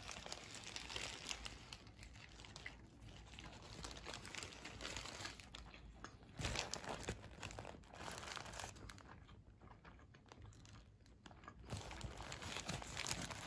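Paper burger wrapper crinkling and rustling as it is handled, in irregular crackles with a quieter pause in the second half.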